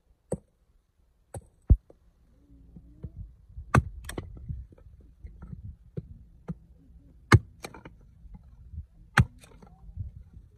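Hatchet splitting dry wood into kindling sticks: a series of sharp, irregularly spaced strikes, with smaller knocks of the split pieces between them.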